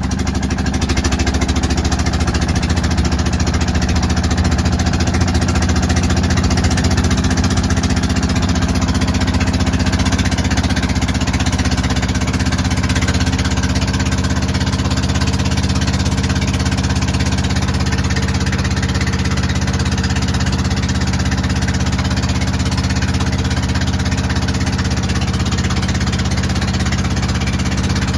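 Engine of a wooden river boat running steadily under way, with water rushing along the hull.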